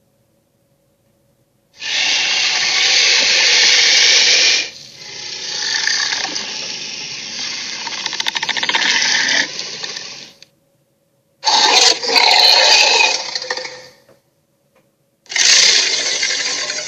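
Sea-serpent creature sound effects from an animated series: bursts of harsh, dense noise. The first starts about two seconds in and changes character partway through, a second comes near the middle, and a third begins near the end, with brief silences between them.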